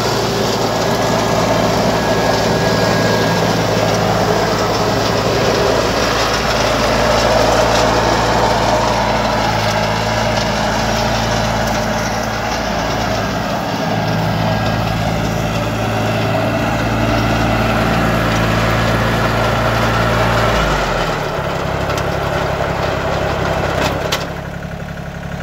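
John Deere 955 compact tractor's three-cylinder diesel engine running steadily as the tractor drives on grass. About twenty seconds in the engine speed drops, and near the end there is a click and it runs on more quietly.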